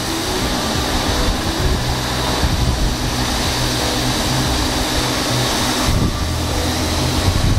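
A large pool fire of diesel spiked with petrol, burning steadily while a firefighting hose jet sprays into it, with the steady hum of an engine underneath, typical of the fire pump feeding the hose.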